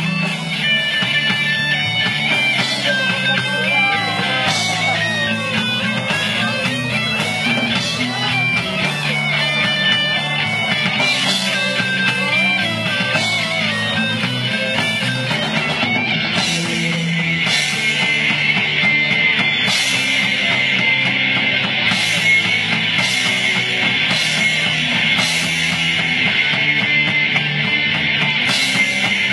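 Amateur heavy metal band playing live with no singing: distorted electric guitars, bass guitar and drum kit. A lead line bends up and down in pitch in the first half, and cymbal crashes come about once a second from about halfway.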